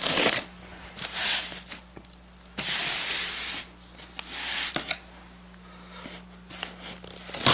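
A shipping box being opened with a folding knife: the blade slits the packing tape and the tape is torn away in several brief rips, the longest lasting about a second.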